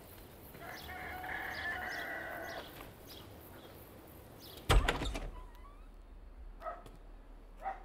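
A sheep bleats for about two seconds. Then a door thumps open loudly, followed by two softer knocks near the end.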